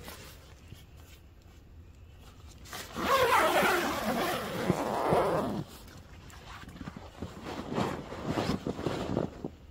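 Zipper on a Litefighter 1 combat tent's door being pulled shut from inside: one long loud rasping run about three seconds in, then a few shorter rasps with tent fabric rustling.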